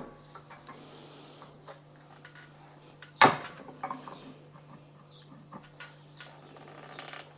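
Light clicks and taps from tightening threaded plumbing fittings, with one sharper knock about three seconds in. A bird chirps faintly once or twice in the background.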